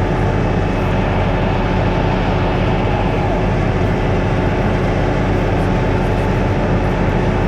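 Farm slurry pumping and mixing machinery running with a loud, steady drone as it pumps and stirs slurry from an underground store.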